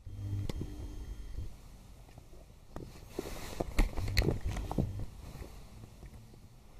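Kittens scuffling and wrestling on carpet: soft thumps, paw scrapes and sharp little clicks, thickest about three to five seconds in. A low hum runs through the first second and a half.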